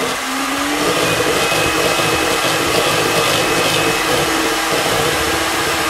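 Electric hand mixer running steadily, its beaters whipping an espresso-and-sugar mixture into dalgona foam in a bowl; the motor's whine rises slightly in pitch in the first second, then holds even.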